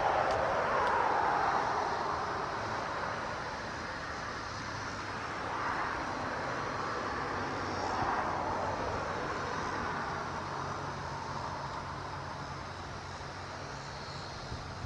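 Outdoor industrial ambience near an oil refinery: a steady low hum under a rushing noise that swells and fades several times.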